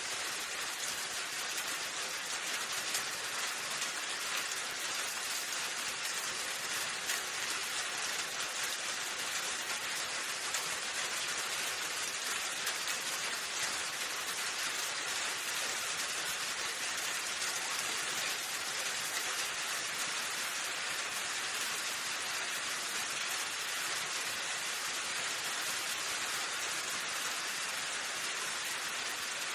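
Steady rainfall, an even hiss of rain falling on a surface.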